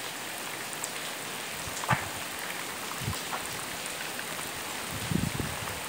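Heavy rain falling steadily in big drops, an even hiss, with a few low thumps, the longest about five seconds in.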